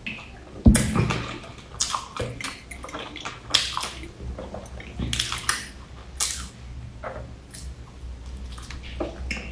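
Close-miked wet mouth sounds of eating soft bread coated in meat floss, with irregular crackles and clicks as it is torn and bitten. A single sharp thump sounds about a second in.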